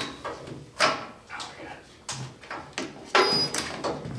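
Metal car-body parts being worked loose: a string of separate knocks and scrapes about a second apart. The loudest is a longer scrape about three seconds in, with a brief high ring.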